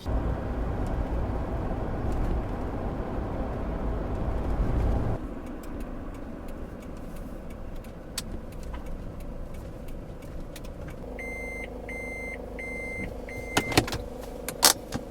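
Camper van heard from inside while driving: steady road and engine noise that drops suddenly about five seconds in to a quieter running hum. Near the end come four short, evenly spaced high beeps, then a couple of sharp clicks.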